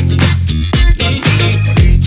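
Background music with a steady beat: an upbeat disco-funk track with a kick drum and bass line.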